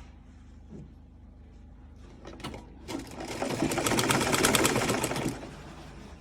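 Sewing machine stitching: two short starts, then a run of rapid even stitches for about two seconds that stops, over a low steady motor hum.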